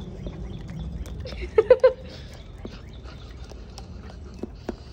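A dog licking peanut butter off a metal spoon: a run of small wet lapping and smacking clicks. About one and a half seconds in comes a short, louder pitched vocal sound in three quick pulses.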